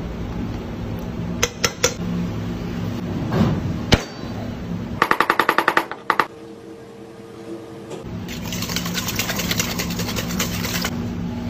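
Chef's knife rapidly mincing garlic on a cutting board: a quick run of about ten sharp chops in just over a second, about five seconds in. Then a spoon stirring and scraping thick yogurt in a stainless steel bowl. It starts with a few sharp knocks from spooning yogurt out of its tub.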